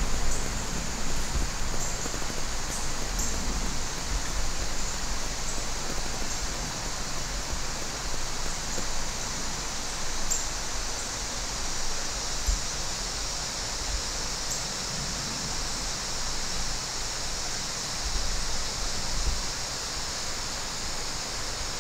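Steady woodland ambience: an even, continuous hiss that is strongest high up, with no distinct events beyond a few faint low bumps.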